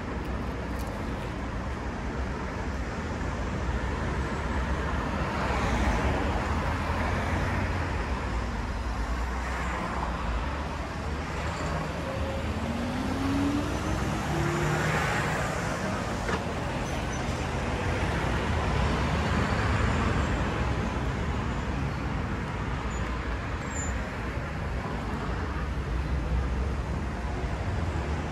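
Street traffic: vehicles passing one after another, each swelling and fading over a steady road rumble, with one engine's pitch rising briefly about halfway through.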